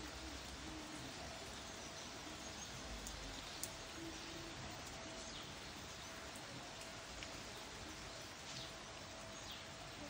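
Steady hiss of heavy rain falling, with scattered drop ticks and one sharper click about three and a half seconds in. Faint bird calls come through now and then.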